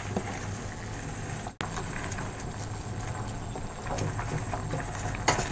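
A steel pot of vegetable soup boiling on the stove, a steady rushing bubble, with a few light knocks and clicks from a plastic ladle pushing spinach down into the pot. A sharper knock comes near the end.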